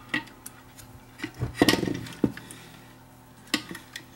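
Hands handling the opened metal chassis of vintage Sanyo walkie-talkies: scattered small clicks and knocks, with a louder cluster of them about one and a half seconds in and a single sharp click near the end.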